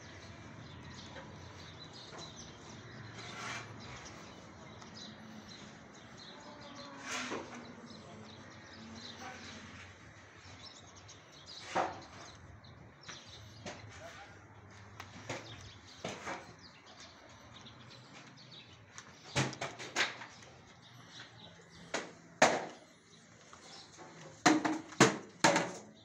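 Irregular knocks and clatters over a steady low hum, with a cluster of loud, sharp knocks in the last seven seconds.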